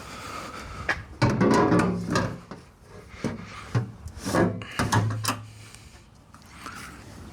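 Hardware being handled: a run of scrapes and clunks, the longest about a second in and smaller ones at about three, four and five seconds.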